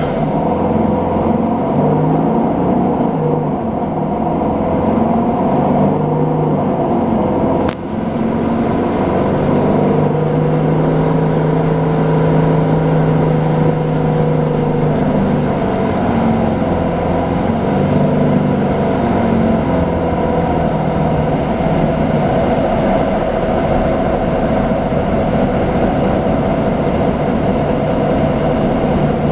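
Nova Bus LFSA articulated city bus running in traffic: its engine and drivetrain drone, holding a note and then shifting it in steps as the bus speeds up and slows. A brief sharp click comes about eight seconds in.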